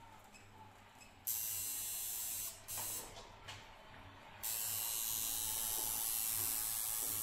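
Electric tattoo machine running in stretches: a steady buzz for about a second, a brief burst, then steadily from a little past halfway, over a faint constant hum.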